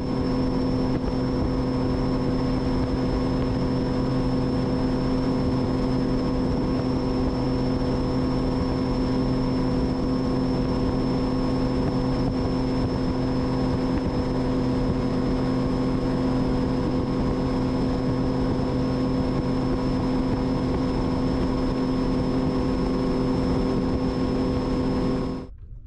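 Bass boat's outboard motor running at a steady, unchanging speed while the boat cruises, with wind rushing over the microphone; the sound fades out shortly before the end.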